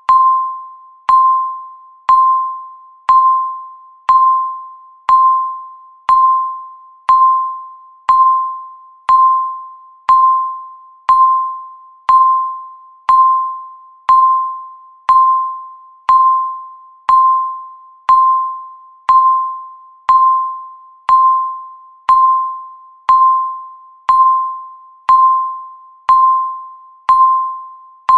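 Countdown timer beeping once a second: a single mid-pitched electronic tone that starts sharply and fades away before the next beep, keeping an even, unchanging rhythm.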